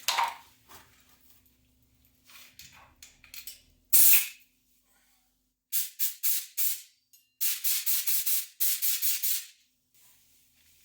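Short scraping and rustling noises from handling the opened Nintendo 3DS XL and its charger, in separate bursts, with a loud one about four seconds in and a quick run of them in the second half.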